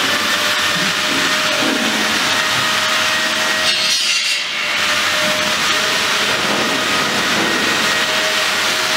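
Abrasive sanding of filler on a motor yacht's hull: a steady, loud rasping and rubbing, with a faint steady hum throughout. The rasping eases briefly about four and a half seconds in.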